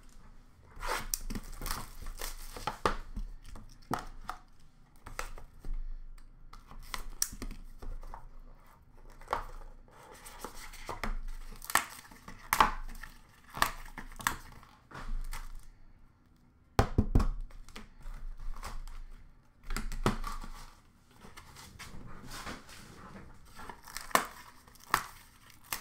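Plastic shrink wrap and card packaging being torn open and crinkled by hand, a run of short crackles and sharp clicks, with a heavier knock about two-thirds of the way through as the cardboard card box is handled.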